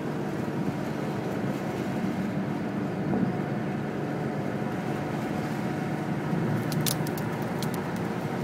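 Steady engine and road noise heard from inside a moving car. A few short, sharp clicks come near the end.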